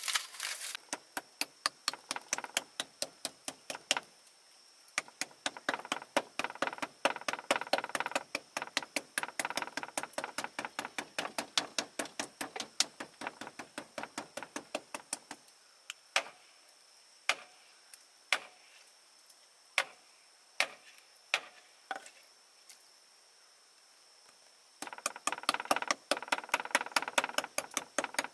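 Rapid repeated knocking, several sharp strikes a second, which slows to single knocks about halfway through, pauses briefly, then picks up fast again near the end.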